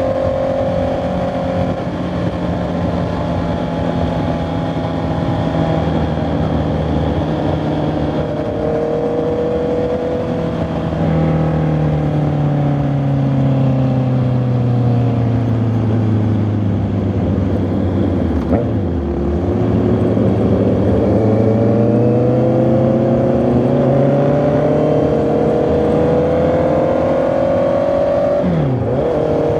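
Honda CB650R's inline-four engine and exhaust under way, its pitch easing down over several seconds and then climbing steadily through the second half as the bike accelerates. Two brief quick dips in pitch break in near the middle and near the end.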